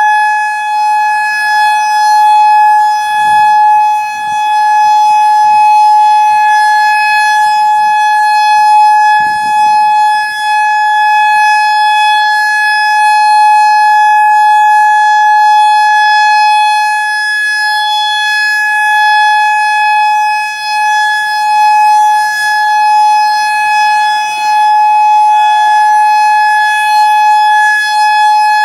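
Federal Signal EOWS 612 electronic outdoor warning siren sounding the Alert signal, a steady tone held at one unwavering pitch with strong overtones, very loud, its level wavering slightly.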